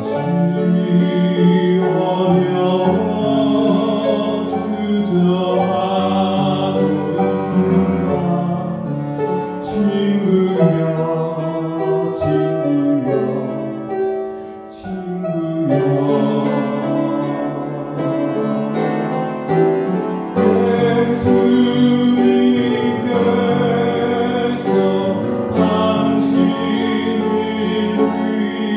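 Upright piano playing a slow hymn, with a man's singing voice over it in places. The music eases briefly about halfway through.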